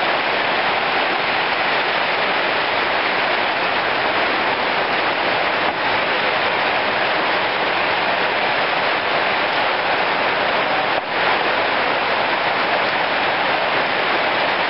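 Steady rain falling, a dense even hiss that stays at the same level throughout.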